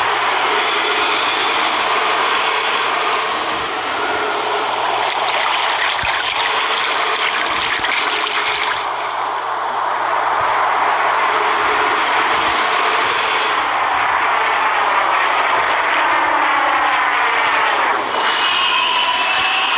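Layered monster sound effects: continuous, harsh roaring and rasping cries, with a few sliding pitched cries near the end.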